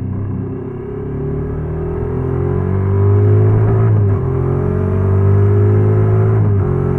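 Honda NC750X's parallel-twin engine pulling under throttle, its pitch rising steadily and getting louder, then dropping sharply about four seconds in and again near the end, like upshifts.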